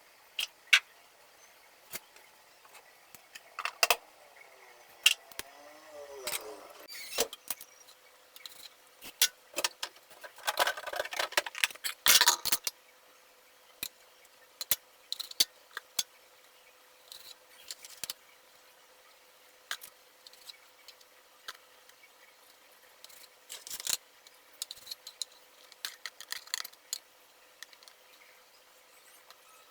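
Kitchen handling noises while food is prepared: scattered sharp clicks and clinks, with a stretch of rustling about a third of the way in.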